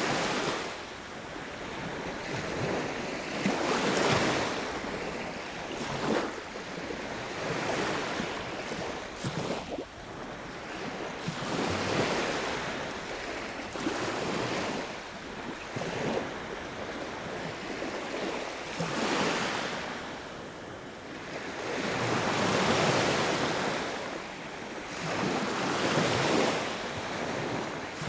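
Sea waves breaking and washing on a shore, each surge swelling and falling away every few seconds, with a steady hiss of surf between them.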